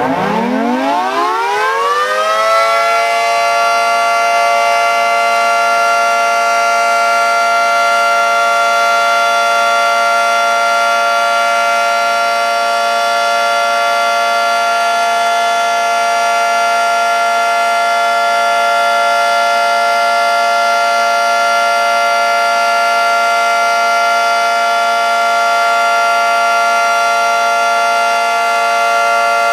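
Federal Signal 2T22 dual-tone outdoor warning siren winding up over the first two to three seconds, then holding a steady, loud two-tone wail. It is sounding for its routine monthly test, not a real alert.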